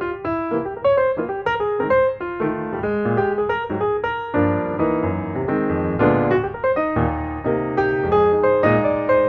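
Background music: piano playing a flowing run of quick notes and chords.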